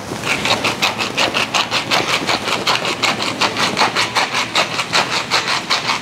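Hand-twisted seasoning mill grinding over a cast iron pan: quick, rhythmic crunching strokes, several a second, as the mill is turned back and forth.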